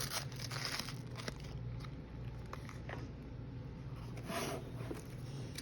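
Rustling and scraping of a wine box's packaging being handled, with short bursts near the start and again about four seconds in.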